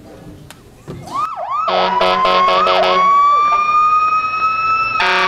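Loud electronic siren-like phone ringtone: swooping pitch glides, then a pulsing buzzy tone under a slowly rising wail, with a last pulsing burst near the end.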